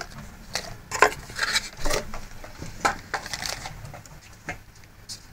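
Unboxing handling noise: a string of irregular clicks, knocks and rustles as the box contents and packaging are moved and set aside.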